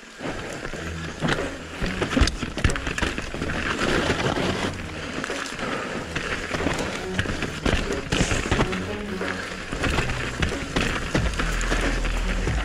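Mountain bike riding down a rough trail: tyres rolling over dirt and rock, with the bike rattling and knocking sharply over bumps, and wind rumbling on the microphone, heavier near the end.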